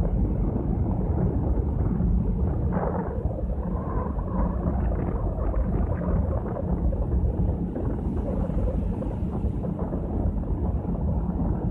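Wind rumbling on the microphone on the open top deck of a cruise ship under way: a steady low rumble, with a few brighter gusts about three to six seconds in.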